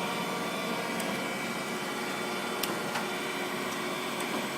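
Kent KGS-63AHD hydraulic surface grinder running on automatic downfeed: its spindle motor and hydraulic pump make a steady hum and hiss, with a few faint clicks. The machine sounds healthy, a good running machine.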